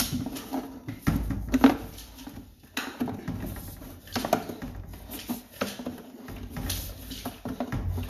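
Irregular knocking, tapping and scraping from a sewer inspection camera's push cable being fed and worked into a drain pipe: uneven knocks, a few a second.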